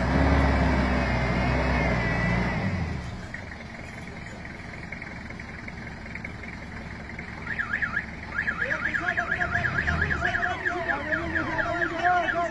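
A vehicle engine running loudly, fading away about three seconds in. From about halfway through, a fast rhythmic chirping comes in at about five a second, over steady tones.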